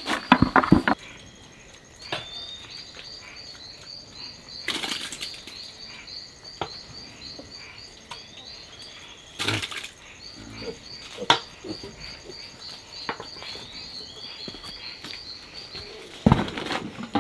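Insects chirping in a steady run of quick, evenly spaced high pulses. Chopped leaves are dropped rustling into a bucket in the first second, and a few scattered knocks and rustles follow.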